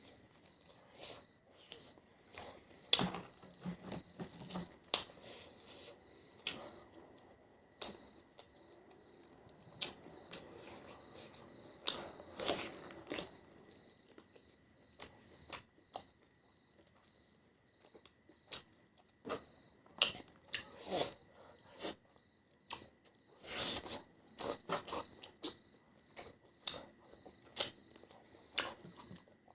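Close-miked mukbang eating: a person chewing and biting, with irregular wet mouth clicks, smacks and crunches.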